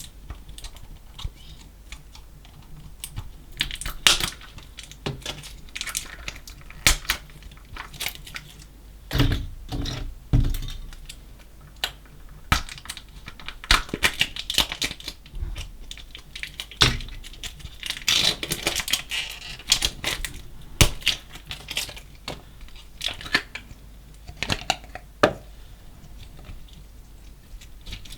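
Slime mixed with small coloured particles being squished and stretched, giving irregular crackles, pops and clicks, with a few dull low thuds about nine to ten seconds in.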